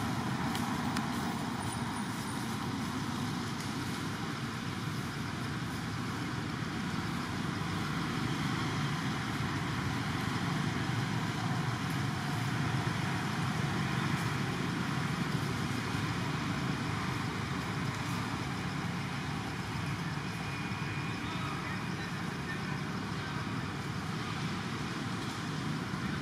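Steady outdoor background noise: an even rumble and hiss that does not change, with no distinct events.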